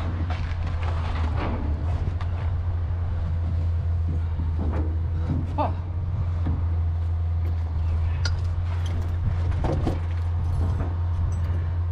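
A vehicle engine idling with a steady low hum, with a few short knocks and clinks over it.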